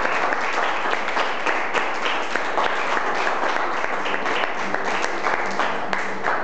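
A small group of people applauding, many handclaps close together, easing off near the end.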